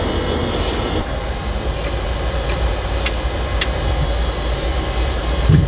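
Steady low rumble of engine and cabin noise on the flight deck of an E-3A AWACS aircraft, with two sharp clicks about three seconds in and a short low thump near the end.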